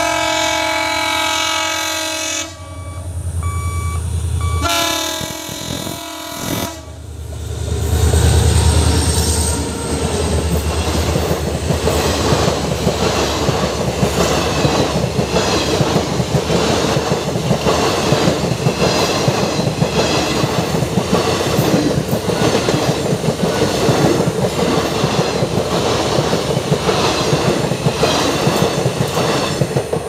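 WDP4D diesel locomotive sounding its horn in two long blasts, the first ending about two seconds in, then passing at speed with a deep engine rumble. The coaches follow with a steady rhythmic clickety-clack of wheels over the rail joints, which fades as the last coach clears near the end.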